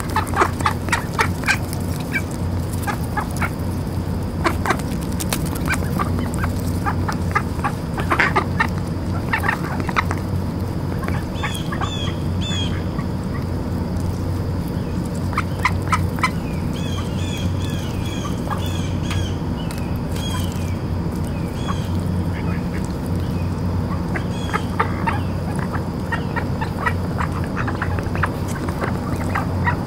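Mallards feeding close by, giving runs of short, soft quacks, over a steady low hum.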